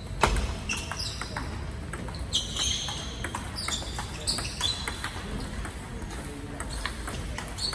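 Table tennis rally: the ball clicks off the rubber-faced paddles and the table in a quick, uneven run of sharp ticks, with short high squeaks from sports shoes on the hall floor mixed in.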